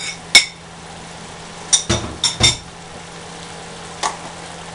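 Metal spoon clinking against a ceramic plate as garlic is knocked off it into the pan, with a few duller knocks around two seconds in and one more clink near the end, over the steady sizzle of diced pork and onions frying in the pan.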